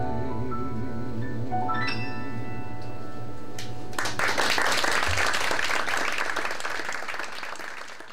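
Piano accompaniment holding the song's final chords and playing a quick rising run, then audience applause breaking out about four seconds in and fading away near the end.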